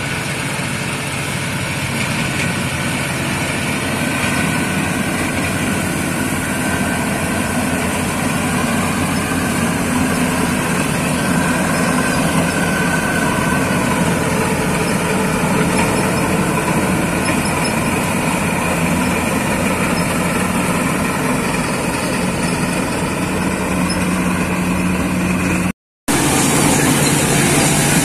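Combine harvester running in a wheat field: a steady mechanical drone with several held tones from its engine and threshing machinery. The sound breaks off for a moment near the end.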